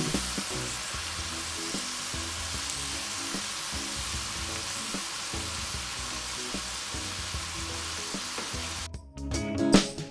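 Green beans, red bell pepper and onion sizzling in oil in a stainless steel frying pan, a steady hiss that cuts off suddenly about nine seconds in.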